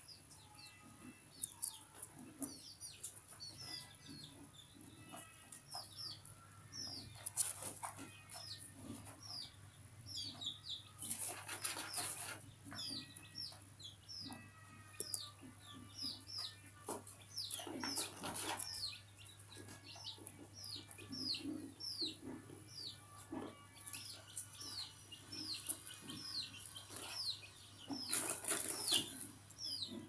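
A small bird chirping over and over, short high notes that fall in pitch, about two a second. It is broken three times by louder rustling noises.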